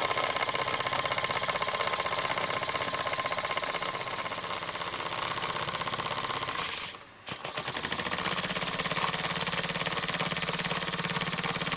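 1929 Meccano steam engine's single-acting oscillating cylinder running fast with a rapid, even beat. About seven seconds in, a short burst of hiss comes and the engine stops dead. It then self-starts: a few slow beats pick up speed within a second back to the fast run.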